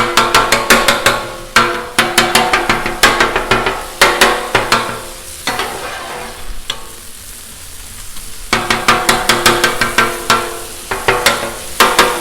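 Metal spatulas clattering rapidly on the steel top of a Blackstone griddle as ground beef is chopped and stirred, over the sizzle of the frying meat. The clatter comes in quick bursts of strokes with a quieter lull in the middle.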